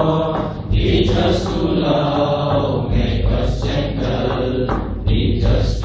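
A group of men singing together in unison, a slow chant-like melody with long held notes.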